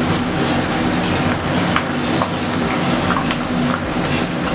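Food sizzling and crackling in a hot steel kadai on a gas stove, a steady crackle with scattered sharp pops, over a low steady hum.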